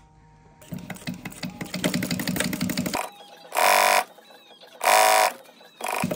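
Industrial sewing machine stitching laminated sailcloth: a couple of seconds of rapid, even stitch ticks, then two short loud runs about a second apart and a brief third one near the end.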